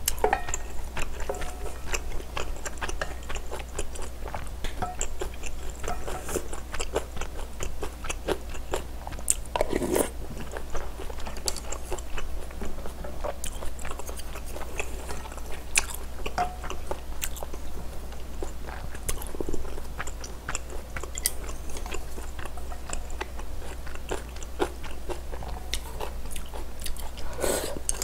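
Close-miked eating sounds: chewing and biting on spicy rice-cake and dumpling soup, with many short sharp clicks and smacks, the loudest about ten seconds in and again near the end, over a steady low hum.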